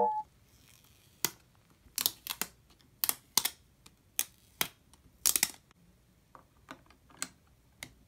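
Sharp, irregular light taps and clicks, about a dozen, as a dust-removal sticker is dabbed onto and lifted off an iPhone's glass screen and the phone is handled. The taps grow fainter after about six seconds.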